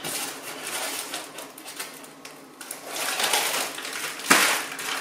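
Paper and plastic packaging rustling and crinkling as it is handled in a cardboard box, with one sharp knock about four seconds in.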